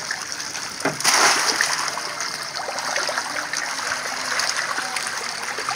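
Catfish thrashing at the pond's surface in a feeding frenzy: dense, continuous splashing with many small quick splashes, and one louder splash about a second in.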